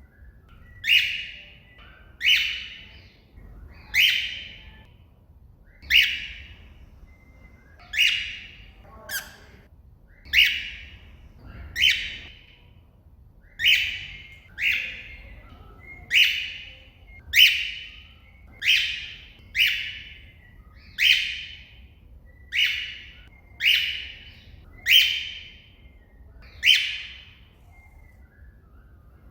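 Cockatiel giving loud contact calls to another bird: about nineteen short, shrill calls, each falling in pitch, repeated roughly every second and a half.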